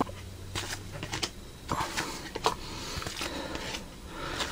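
A trading card pack being opened and handled: the wrapper crinkles and rustles in short irregular bursts, with a few sharper clicks as the cards are handled.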